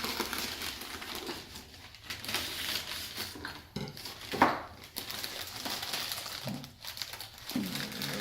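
Packaging crinkling and rustling as it is handled during unboxing, with one sharp, louder noise about halfway through.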